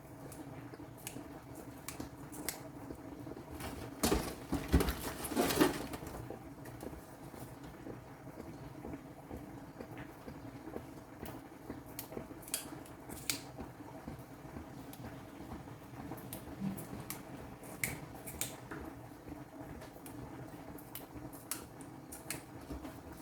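Eating sounds: cutlery clicking against a plate and chewing, with a louder clatter of dishes about four to six seconds in.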